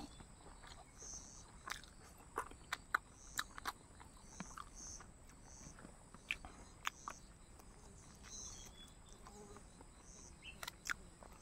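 Close mouth sounds of chewing rice and pork: wet smacks and clicks scattered irregularly. Behind them an insect chirps steadily about twice a second.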